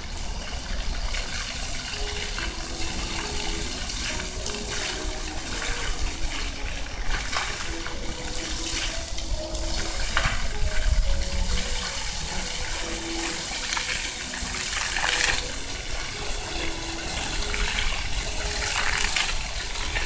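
Floor-level plaza fountain: rows of water jets spraying up from ground nozzles and splashing back onto wet paving, a steady rush of falling water that surges louder every few seconds as the jets rise.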